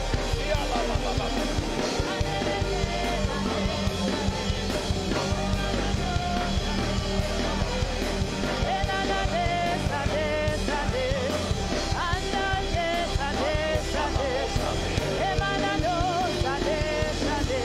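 Live church worship music: a band of keyboard, drums and bass playing steadily while a congregation sings along.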